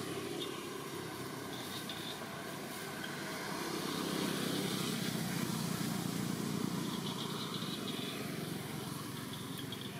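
Low rumble of motor vehicle traffic that grows louder about halfway through and eases off near the end.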